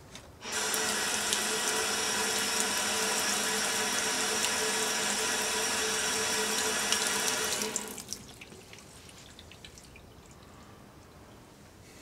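Water running from a tap into a sink, starting about half a second in and turned off at about eight seconds, followed by a few drips and splashes.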